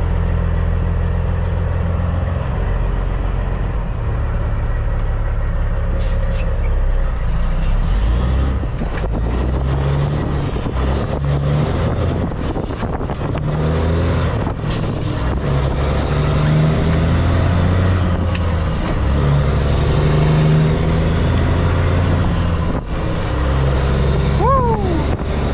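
2006 Peterbilt 379's CAT C15 diesel engine, heard from inside the cab. It runs steadily at first, with a few sharp clicks about six to eight seconds in, then pulls away and works up through the gears. The engine note climbs and drops with each shift, and a high whine rises and falls along with it.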